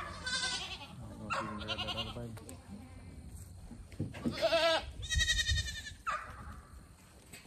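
Boer and Kiko goats bleating in the pen: about five wavering calls, one of them noticeably higher-pitched.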